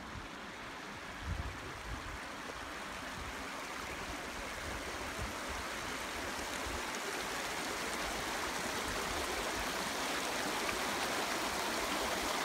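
Shallow mountain river rushing over stones, a steady wash of water that grows gradually louder. A few low thumps come about a second in.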